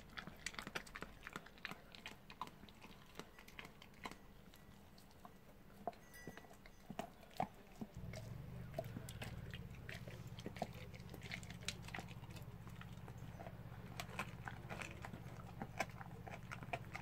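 Dog crunching and gnawing on a raw oxtail bone: a quick, irregular run of cracks and crunches. About eight seconds in, a low steady hum starts underneath.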